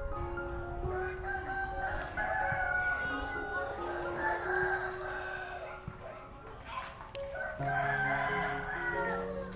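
A rooster crowing several times, long calls that rise and fall, over background music with a stepped melody.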